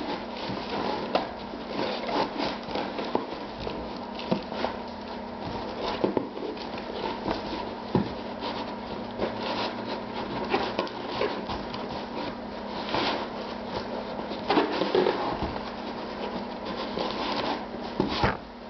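Packaging being handled by hand while a boxed model part is unpacked: continual rustling, rubbing and scratching with many small clicks, over a faint steady hum.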